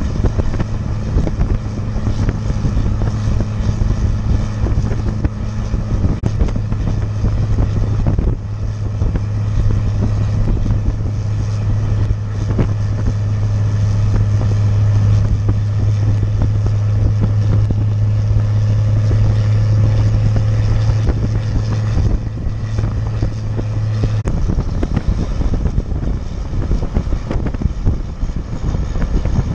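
1995 Dodge Ram 3500's 12-valve Cummins 5.9 L inline-six turbo diesel running under load while towing a trailer of about 12,000 lb, with a steady low drone and wind noise. The drone drops away about 24 seconds in.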